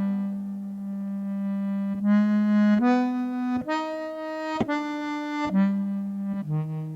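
Hammond-Suzuki H24B bass melodica playing long held reedy notes through a headphone amp's reverb. It holds one low note for about two seconds, then moves through a series of held notes that change about once a second.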